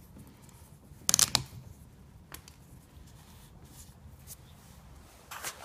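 A plastic oil bottle being opened by hand: a short burst of crackling plastic about a second in as the red cap and its tear-off seal strip are worked loose, then a single click and a few faint taps.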